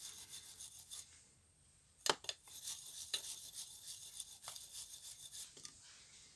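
A retinned soldering iron tip being rubbed and polished: a dry, scratchy rubbing in quick strokes. It pauses about a second in, a sharp click comes near two seconds, and the rubbing resumes.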